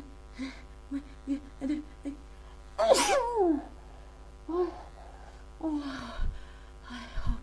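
A woman sneezing during a sneezing fit. A run of short, quick catching breaths builds up to one loud sneeze about three seconds in, its voice falling in pitch. Softer breathy, voiced catches follow in the second half.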